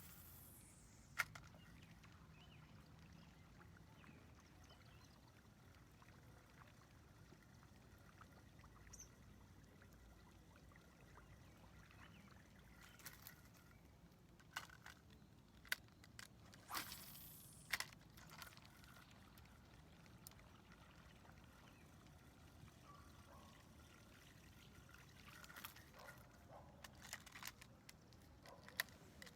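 Near silence with faint water trickling and lapping, broken by scattered sharp clicks and taps: one about a second in, a cluster around the middle and several more near the end.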